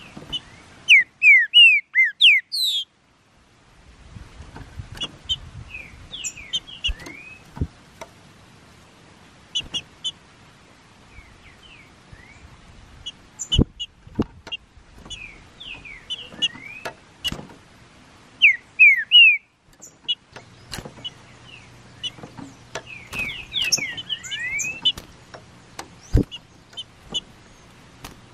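Green-winged saltator (trinca-ferro) singing: loud phrases of quick sweeping whistles about a second in, again a little past the middle, and in a longer burst near the end, with softer scattered notes between. Now and then there is a sharp click.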